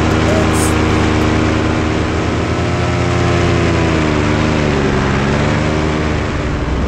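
Powered paraglider trike's propeller engine running in flight; about halfway through its pitch sags for a couple of seconds as the throttle eases, then rises back.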